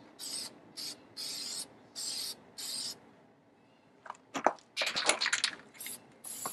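Aerosol can of Krylon glow-in-the-dark spray paint hissing in short bursts, five in quick succession. After a pause there is a cluster of sharp clicking and rattling, the loudest sound, and then two more short sprays near the end.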